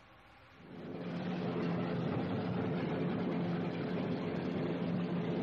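Twin Allison V-1710 V-12 piston engines of a P-38 Lightning running, a steady low engine drone that comes in less than a second in and then holds.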